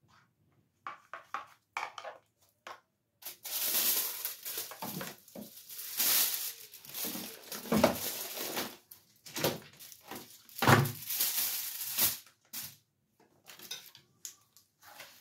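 Hair-colouring tools being handled: irregular scraping and rustling with light plastic knocks, busiest through the middle, with a few small clicks at the start and end.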